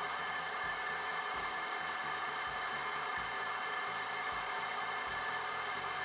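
Benchtop drill press motor running steadily while a small twist bit drills a set-screw hole into the side of a wooden shotgun stock.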